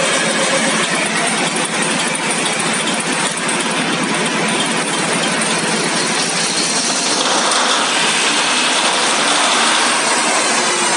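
Deutz 620-series V12 engine running steadily, a loud dense mechanical clatter that grows slightly louder and brighter about seven seconds in.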